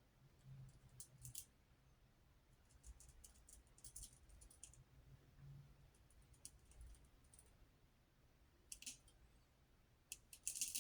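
Faint razor strokes across the face: a blade scraping through stubble in short passes, heard as little groups of crisp crackling clicks every second or two, the loudest just before the end.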